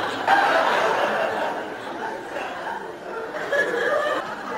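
Laughter and chuckling.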